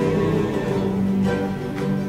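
Live concert music: a band playing, with held notes ringing steadily.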